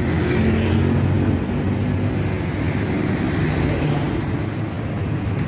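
Honda EP1000 portable generator's small petrol engine running at a steady speed, an even engine hum with no change in pitch.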